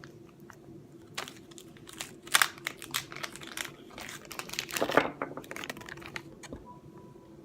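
Plastic blind-bag packaging crinkling and crackling in irregular bursts as it is torn open and handled, louder about two and a half and five seconds in.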